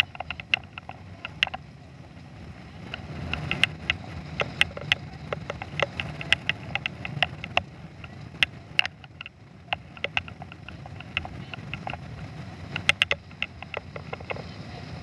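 Pontoon boat running under power: a steady low rumble of motor, water and wind, with frequent sharp knocks scattered through it, bunched near the start and again near the end.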